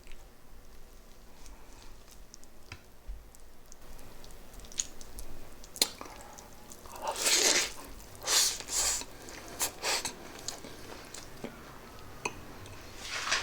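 Close-miked eating sounds of pork adobo and rice: a few faint clicks, then from about seven seconds in, several loud bursts of chewing and biting, with another near the end.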